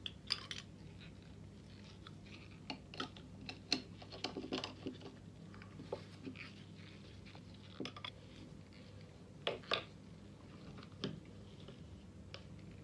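Gloved hands handling plastic bottles, caps and a funnel: scattered clicks, taps and plastic rustles, with a few sharper clicks, over a low steady hum.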